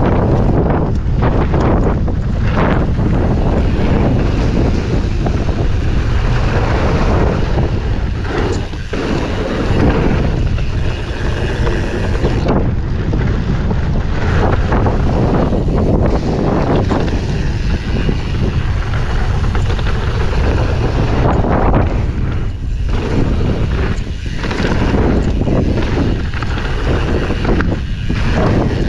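Wind rushing over an action camera's microphone, mixed with the steady rumble of a Commencal Supreme DH29 downhill bike's tyres rolling over dirt, gravel and a wooden boardwalk at speed. The noise is loud and heavy in the low end, with short dips now and then.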